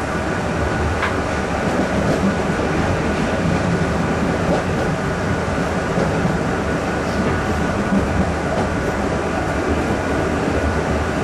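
Electric multiple unit train running steadily along the line, heard from inside the driver's cab: an even rumble of wheels on rail and running gear.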